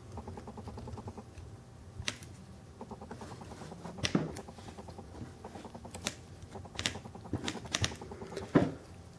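Light clicking and tapping from a die-cast scale-model excavator being handled, its metal and plastic parts moved by hand, with a few sharper taps.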